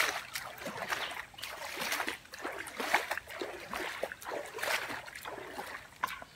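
Hands paddling pond water beside a floating wheelbarrow tub, in quick, irregular splashes.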